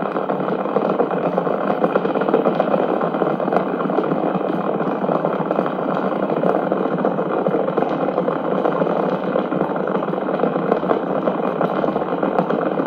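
Cattle stampede sound effect played from a vinyl sound-effects record: a steady, dense rumble of a running herd.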